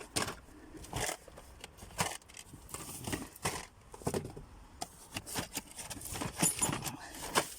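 Metal wrenches clinking and clattering as they are rummaged through, picked up and set down: a string of irregular sharp clicks and knocks.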